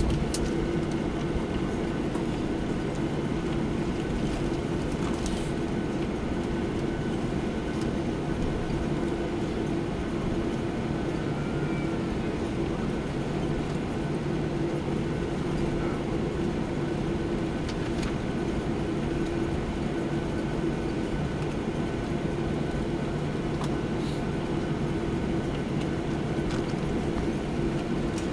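Steady cabin noise inside a Boeing 737-800 while it taxis: a constant engine hum with one steady tone over a low rumble, and a few faint ticks.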